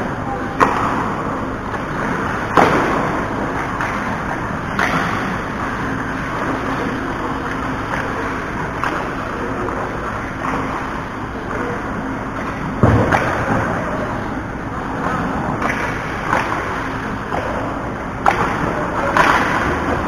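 Ice hockey play: a steady hiss of skates scraping across the ice, with scattered sharp knocks of sticks and puck. The heaviest is a low thud about 13 seconds in.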